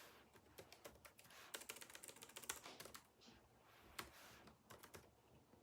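Faint typing on a computer keyboard: a quick run of keystrokes from about one and a half to three seconds in, then a few isolated key clicks.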